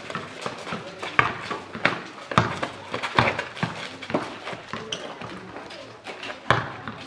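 A basketball bouncing on a paved outdoor court: a string of irregular sharp thuds, roughly one or two a second.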